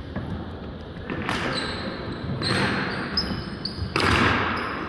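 Echoing indoor hockey hall ambience: sneakers squeaking on the wooden floor amid a low hall rumble, with three short loud bursts of noise, the loudest near the end.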